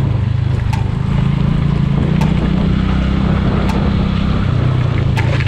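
Motorcycle engine running while riding, its note shifting up and down with the throttle a few times. A faint sharp tick sounds about every second and a half.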